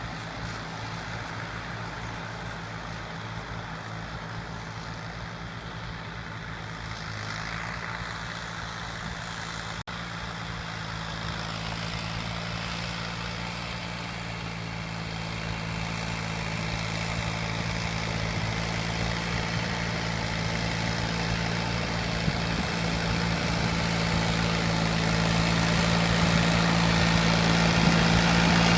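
Farm tractor's diesel engine running steadily, growing louder through the second half as it comes closer.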